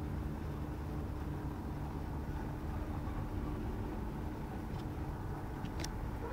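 Steady low rumble and hum of background noise, with a few faint clicks about five to six seconds in.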